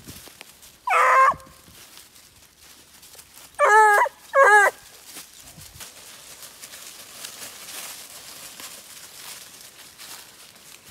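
Young hunting hound giving tongue on a scent: three short, pitched baying cries, the first about a second in and the other two close together a few seconds later, over a faint rustle of dry leaves underfoot.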